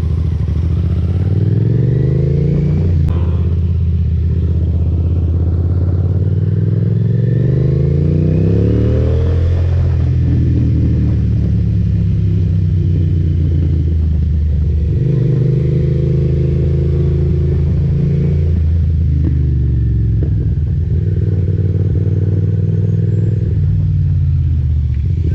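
Motorcycle engine under way, rising in pitch and shifting up through the gears several times in the first ten seconds, then running at a steady speed with a couple more gear changes.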